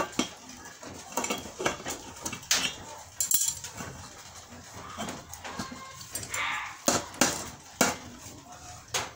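A metal tool clinking and knocking on an enamel plate as lumps of hot charcoal are moved and pushed about on it. The plate sits on a cake pot to give heat from above. The clinks come irregularly, a dozen or so sharp knocks.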